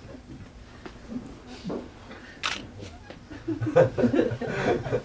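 A man's voice through a microphone in short bursts, with no words the recogniser could make out, louder in the second half; one sharp click about two and a half seconds in.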